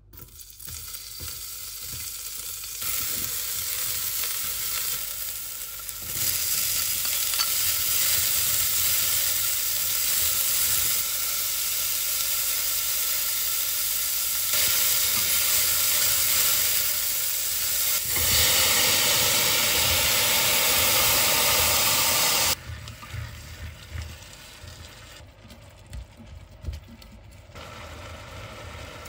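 Diced red onion and carrot sizzling as they fry in a stainless steel pot, stirred with wooden chopsticks. The sizzle is loud and drops away suddenly about three quarters of the way through to a quieter hiss.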